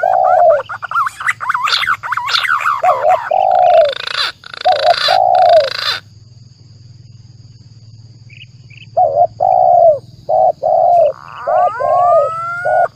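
Bird-lure recording of spotted doves cooing in repeated low arched notes, mixed with the rising and falling whistles of green pigeons. It cuts off suddenly about six seconds in, leaving only a faint low hum. About three seconds later the cooing starts again.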